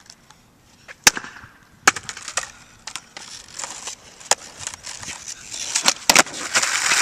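Skateboard on asphalt: sharp wooden knocks of the deck and tail striking the street, the wheels rolling in between, then the pop and clatter of a tre flip attempt about six seconds in, followed by a loud scraping as the board and rider skid across the asphalt.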